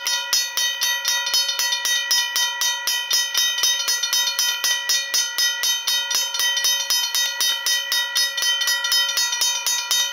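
Griswold mechanical level-crossing bell ringing continuously, with rapid, even strokes of the clapper on the gong and a ringing tone that carries between strokes: the crossing is active for an approaching train.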